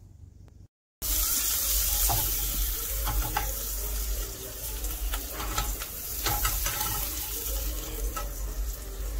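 Assorted vegetables sizzling in butter in a frying pan, a steady hiss that starts abruptly about a second in, with light clicks and scrapes of a spatula against the pan.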